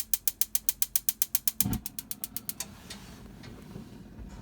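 Electronic spark igniter of a motorhome gas oven's grill clicking rapidly, about eight sharp clicks a second, as the knob is held to light the burner; a short low thump comes partway through and the clicking stops about two and a half seconds in.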